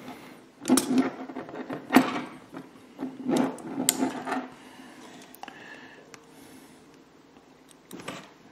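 Plastic model-car chassis and wheel assembly being picked up and turned in the hand: a run of small knocks, clicks and rubbing, most of it in the first four and a half seconds, then quieter handling with one more click near the end.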